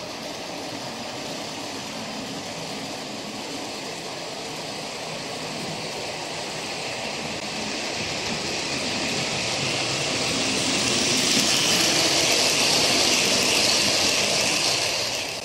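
OO gauge model train, a model steam locomotive hauling coaches, running on the layout's track: a steady whirr of motor and wheels on the rails. It grows louder as the train comes close past, then cuts off suddenly at the end.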